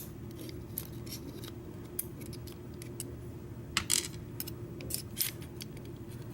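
Light metallic clicks and ticks of small lock pins being handled with tweezers as a Schlage deadbolt cylinder is taken apart. They come scattered, with a small cluster about four seconds in, over a low steady hum.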